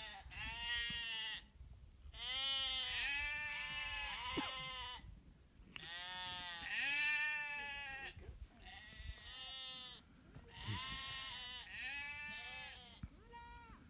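A mixed flock of sheep and goats bleating, many calls overlapping, each bleat rising and falling in pitch. The calls come in waves with short lulls between them.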